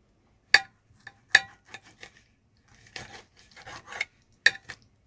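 Steel knife and fork clinking and scraping on an enamelware plate as a steak is cut: three sharp clinks, with a stretch of sawing and scraping in the middle.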